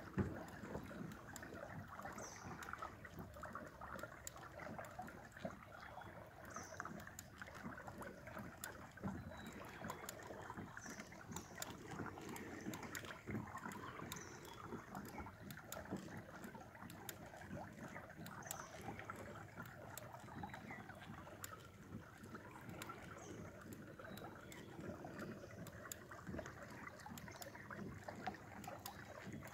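Steady soft wash of water against the hull of a Hobie Pro Angler 14 pedal kayak under way, with faint short high chirps every few seconds.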